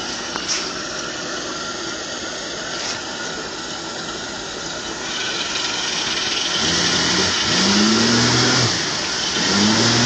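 Stuck pickup truck's engine running, then revved hard twice in the second half, rising in pitch each time, as it is driven in four-wheel drive to try to pull free.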